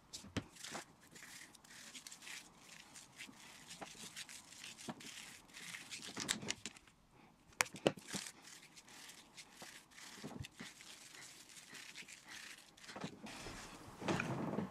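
Faint rustling and squishing with scattered small clicks and taps: hands working silver shampoo into sections of wet hair and handling the shampoo bottles. The handling noise gets louder near the end.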